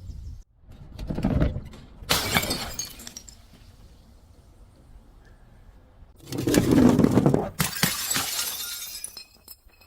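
Glass bottles breaking and shattering, in two bouts of crashing with tinkling shards, the first about a second in and the second about six seconds in.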